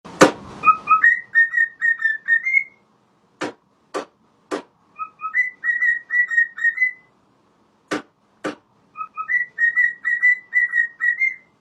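A short whistled tune, the same quick run of notes repeated three times, with a sharp hit at the start and single knocks in the gaps between the runs.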